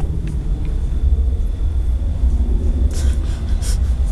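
Wind buffeting the camera microphone, an uneven low rumble. A few brief rustles come about three seconds in.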